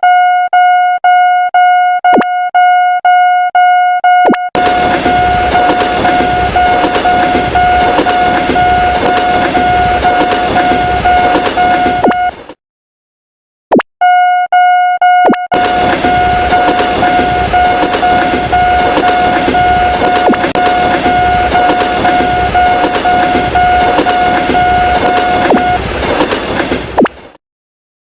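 Railroad crossing warning bell ringing about twice a second, joined after a few seconds by a train rushing past with a regular low clatter of wheels; both cut off abruptly. After a second of silence the bell starts again, a second train passes, and the bell stops shortly before the train noise ends.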